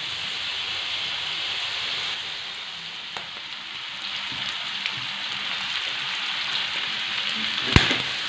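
Squid and chicken pieces sizzling steadily in hot oil in a wok as they cook, with a single sharp clink of the metal spatula against the wok near the end.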